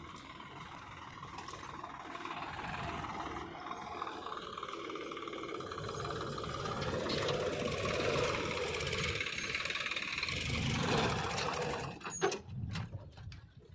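Heavy machinery's diesel engine running, its pitch shifting and the sound swelling under changing load. Near the end it drops away suddenly, with a few sharp clicks.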